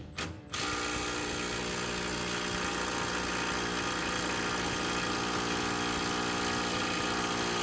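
Impact wrench running steadily for about seven seconds on an 18 mm transmission crossmember bolt, starting about half a second in and stopping near the end, without breaking the bolt loose.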